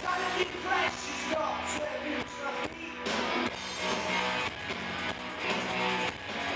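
Live rock band playing through a PA: two electric guitars, bass guitar and drum kit, with a steady beat.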